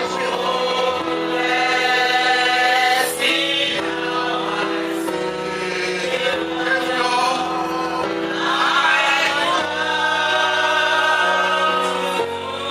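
Gospel worship music: voices singing together over instrumental accompaniment with sustained chords.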